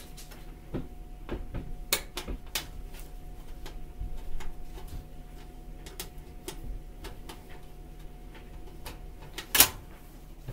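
Scattered clicks and knocks of a screwdriver and hands working on a range's sheet-metal control panel, with the loudest knock near the end, over a faint steady hum.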